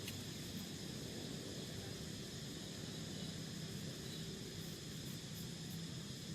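Portable gas stove burning steadily under a bag of water, a constant hiss, with a steady drone of insects.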